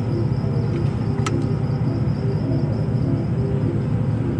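Steady low rumble throughout, with one sharp click about a second in as a spark plug cable is unclipped on a Mazda RX-8 rotary engine.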